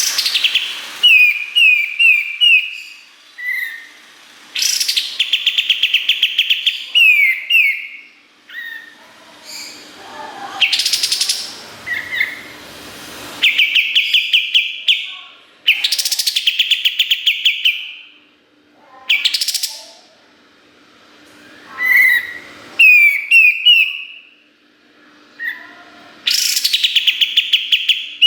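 A kapas tembak singing loud, repeated song phrases. Each phrase is a fast trill of rapid notes a second or two long, alternating with short downward-slurred whistled notes, and the phrases recur every few seconds.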